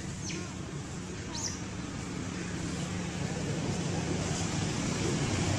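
Steady outdoor background hum like distant traffic, with two brief high squeaks in the first second and a half.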